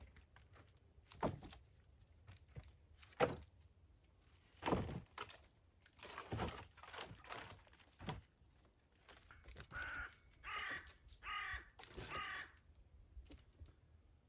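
A crow cawing about four times in quick succession in the second half, harsh calls of about half a second each. Before that come a few sharp knocks and short scraping, rustling bursts.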